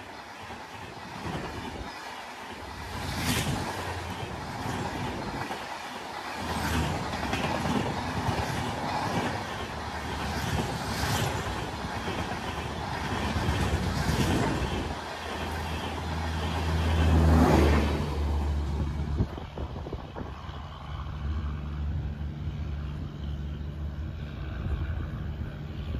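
Rajdhani Express coaches passing close at about 110 km/h: loud rushing noise of wheels on rail with repeated clattering as the bogies go by. After about 18 s it drops to a lower, steadier rumble as the train draws away.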